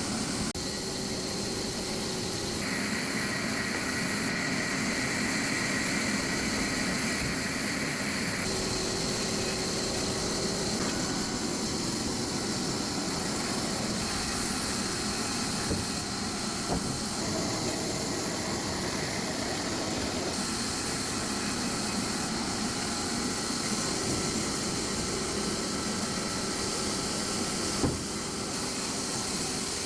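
Sawmill saw running and cutting a coconut log: a steady machine noise with a strong hiss that changes character abruptly every few seconds, with a single sharp knock near the end.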